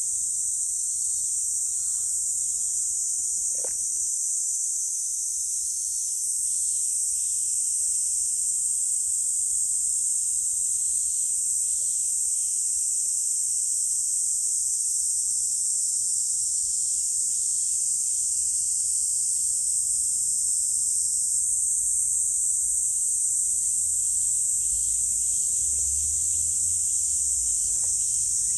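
A chorus of cicadas singing as one unbroken high-pitched buzz, a little louder from about six seconds in.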